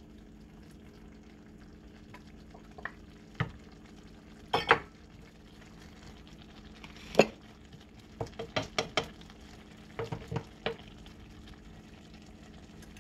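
Sliced red bell peppers tipped from a glass bowl into a skillet, then a wooden spatula stirring them into the curry, knocking and scraping against the pan in short sharp clacks. The loudest knocks come about four and seven seconds in, over a faint steady hum.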